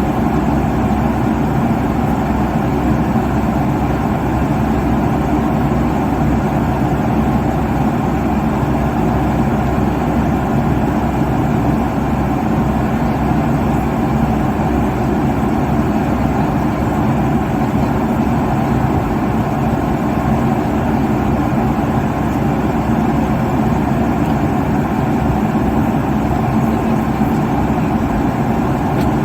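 Steady engine and airflow drone inside an airliner cabin at cruise, a constant low rush with a faint hum and no changes.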